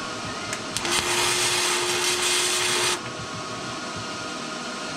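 A MIG welder laying a short bead of about two seconds, starting about a second in: a loud hissing crackle from the arc, with the steady hum of the wire feed under it, then it cuts off sharply.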